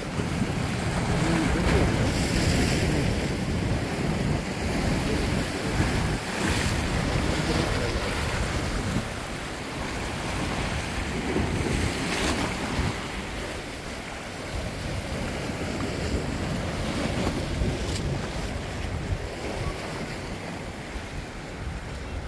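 Sea waves surging and washing against a rocky shore, with wind rumbling on the microphone. Louder in the first half.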